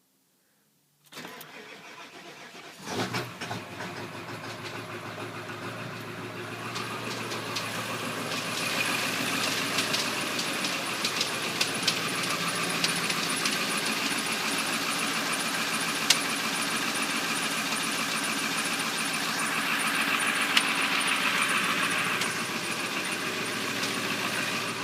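1997 Ford F-250's 7.3-litre Power Stroke V8 turbo diesel cranking and catching about three seconds in, then idling cold with a rapid tapping. The owner hears the tap only on the first start of a cold morning; it fades once the engine is warm and doesn't follow RPM.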